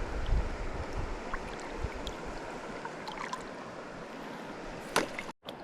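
River water running steadily over rocks, with wind buffeting the microphone in the first second or so. A sharp click about five seconds in, followed by a momentary cut-out of all sound.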